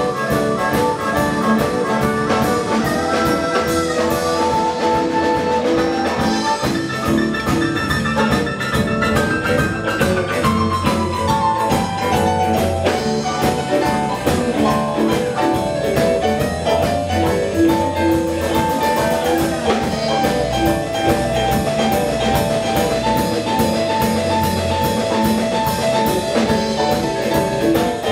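Blues band playing live through an instrumental stretch with no vocals: a steady beat under sustained melody lines, with a long falling run about ten seconds in.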